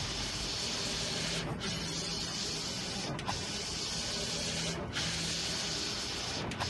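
Digital flatbed printer's print-head carriage sweeping back and forth across the bed. It makes a steady whirring hiss that breaks off briefly at each end of its travel, about every second and a half.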